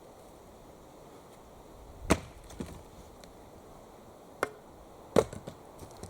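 Axe chopping wood: three sharp strikes, about two seconds in, near four and a half seconds and just after five seconds, the first and last loudest, with a few smaller knocks after them.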